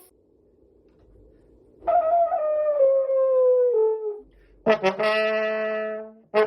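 A brass horn, trumpet-like, blows one long note that slides down in pitch for about two seconds. After a brief pause it blows a steady held note for about a second and a half. The first couple of seconds are nearly quiet.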